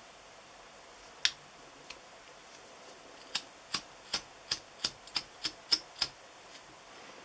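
Piezo igniter of a gas lighter being clicked: one sharp click, then a quick run of about ten clicks at three to four a second, with no gas hiss or flame between them.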